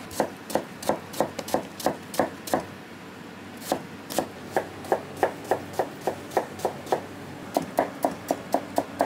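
Kitchen knife chopping daikon radish into thin strips on a plastic cutting board: regular knife strikes, about three a second, with a short pause about three seconds in.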